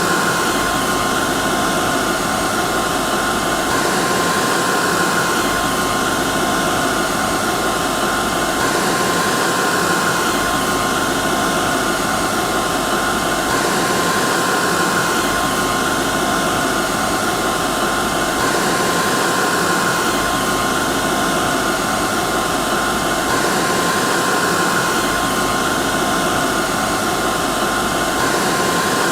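Hair dryer running steadily, a loud, even rush of blown air with a steady motor whine on top.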